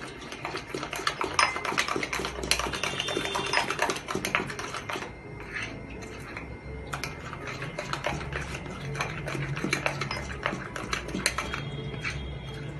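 A utensil scraping and clinking against a mixing bowl while stirring thick cake batter, an irregular run of quick clicks and scrapes.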